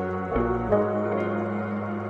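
Ambient background music: sustained, slowly changing tones with a deep bass note, a new chord entering about half a second in.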